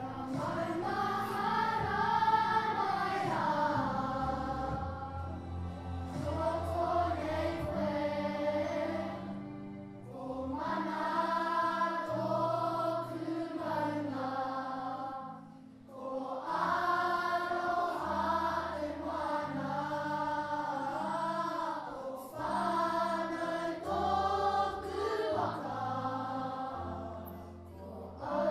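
A large group of children singing a song together, phrase after phrase with short breaks between, accompanied by guitar.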